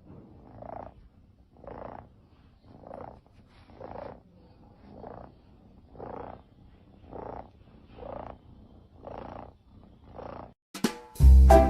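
A cat purring, the sound swelling and fading with each breath about once a second. Near the end, loud music cuts in.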